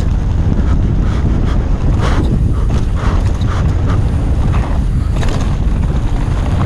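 Heavy wind buffeting on a rider-mounted camera's microphone during a fast downhill mountain-bike descent, over a steady low rumble of tyres on the dirt track with scattered rattles from the bike.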